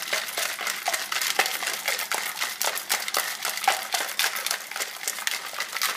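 Ice cubes rattling and clattering inside a cocktail shaker being shaken hard to chill and mix a martini: a fast, steady, dense clatter.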